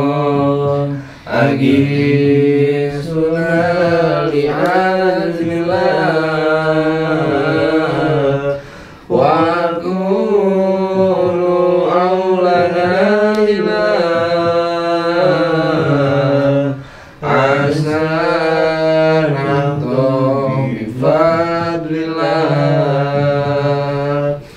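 A man's voice chanting an Islamic prayer recitation in long melodic phrases, pausing for breath about every eight seconds.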